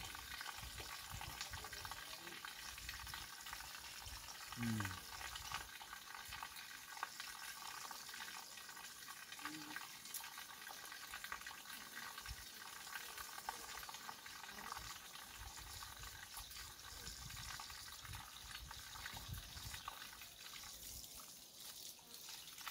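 Water running steadily from an outdoor tap and splashing onto wet stone, a faint, even rush.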